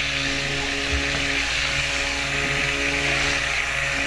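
Handheld stick blender running steadily in a jug of used cooking oil and lye solution, mixing the raw soap batter toward trace.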